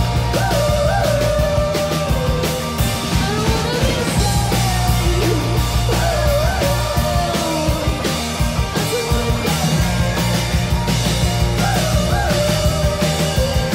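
Indie rock band playing live: drum kit, bass and electric guitar with an electric viola being bowed, under a wavering lead melody line.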